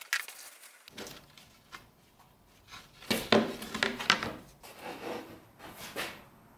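Red oak boards and blue painter's tape handled on a workbench: a string of short scraping and rustling handling noises with light knocks, the loudest about three to four seconds in.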